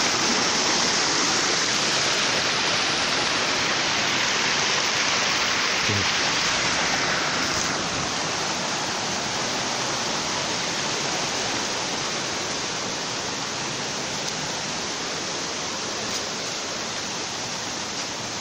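Small waterfall on a rocky creek pouring into a natural pool: a steady rush of water, a little quieter from about eight seconds in.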